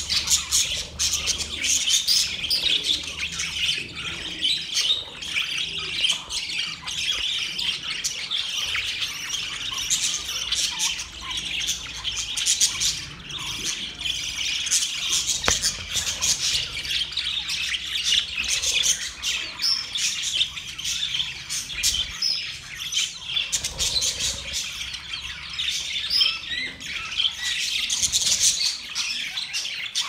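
A flock of budgerigars chattering continuously: many quick overlapping chirps, warbles and squawks.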